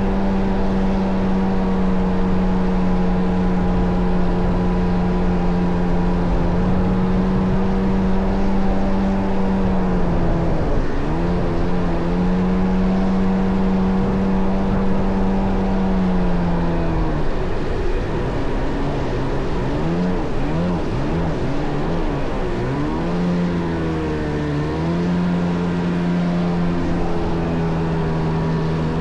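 Kawasaki JS550 stand-up jet ski with a swapped-in 650 two-stroke twin engine, running at a steady high speed. The pitch dips briefly about a third of the way in, then drops and wavers up and down for several seconds as the throttle is worked, before settling steady again near the end.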